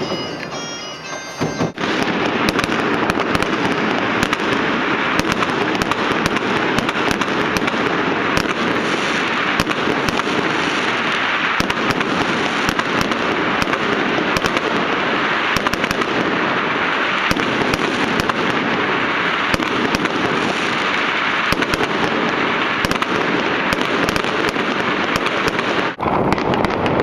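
Dense, continuous crackle of massed fireworks and firecrackers going off, with countless overlapping sharp pops and bangs. It starts about two seconds in and breaks off briefly near the end.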